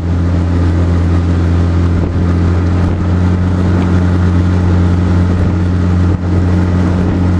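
Motorboat's engine running steadily under way, a constant low drone heard from on board with a hiss of water and wind above it.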